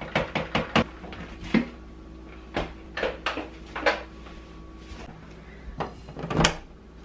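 Plastic clicks and knocks of a Bissell Power Force Helix bagless upright vacuum being handled as its emptied dust canister is fitted back on, then a door being opened, its latch clicking near the end.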